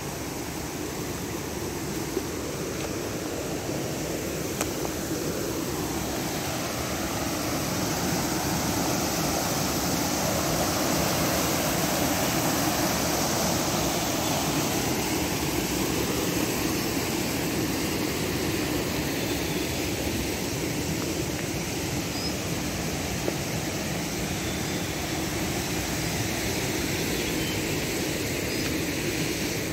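Steady rush of a rocky mountain stream tumbling over boulders, a little louder about halfway through.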